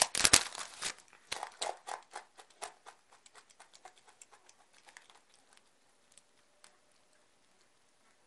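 Plastic snack bag crinkling as a hand takes beans out, then crisp crunching of roasted black edamame (dry-roasted black soybeans) being chewed. The crunches grow sparser and fainter and die away after about six seconds.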